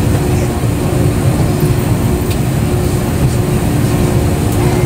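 Steady low rumble inside the cabin of a parked Airbus A330-200 from its air-conditioning, with a faint steady hum on top.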